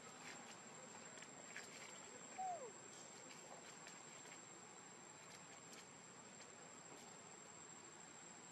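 Faint, steady, high-pitched trilling of insects, with scattered light clicks and one short falling squeak about two and a half seconds in.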